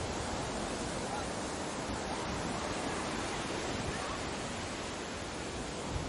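Ocean surf: a steady wash of waves, with no single crash standing out.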